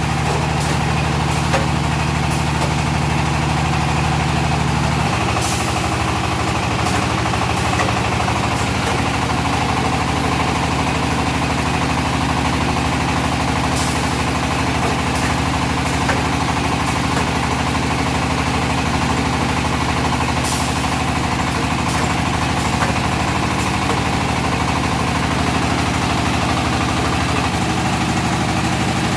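Automatic red-brick making machine running steadily with an engine-like drone that shifts in pitch about five seconds in, broken by occasional short sharp clicks and clanks.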